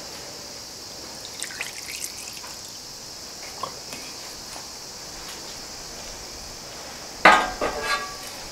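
Dark liquid coating dripping and trickling off freshly dipped forged hoe blades into the dipping tank, with a few small plinks over a steady hiss. About seven seconds in comes a quick cluster of louder metallic clinks with a short ring.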